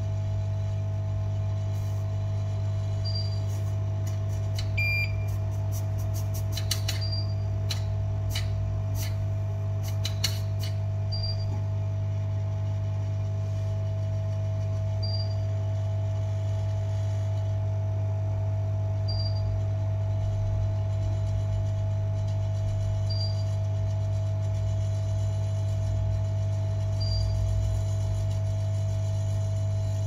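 Steady electrical hum of repair-bench equipment with a faint short high beep about every four seconds. A brief beep about five seconds in, and a flurry of light clicks over the next five seconds.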